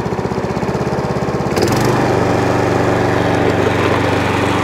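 Hayter 41 lawn mower's petrol engine idling with an even, lumpy beat. About one and a half seconds in it picks up, with a short click, to a steady higher running speed.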